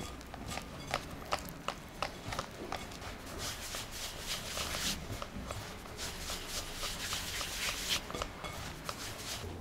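Hands rubbing oil into flour in a glass mixing bowl, working it into crumbs for yakgwa dough: a dry, sandy rustle as the mixture is rubbed between the palms, with irregular clicks and taps of fingers against the glass.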